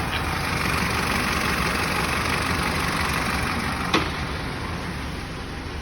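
Mitsubishi Shogun's 4M41 3.2-litre four-cylinder turbodiesel running steadily, with a single sharp click about four seconds in.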